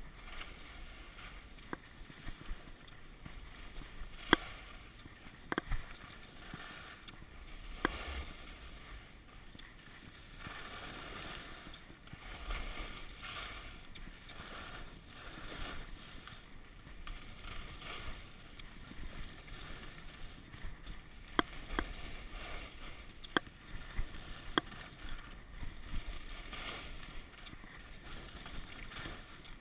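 Skis running down a packed, groomed snow slope: a steady hiss and scrape that swells and fades with the turns, with several sharp clicks scattered through and a low wind rumble on the microphone.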